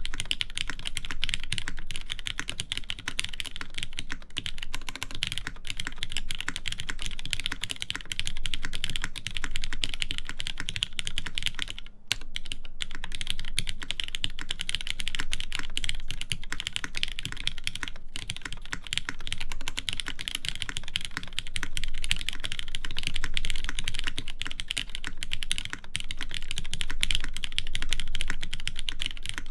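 Continuous fast typing on a TGR Jane v1.5 mechanical keyboard with lubed Cherry MX Black linear switches, a half FR4 plate and GMK keycaps: a dense stream of keystrokes bottoming out. There is a brief pause about twelve seconds in.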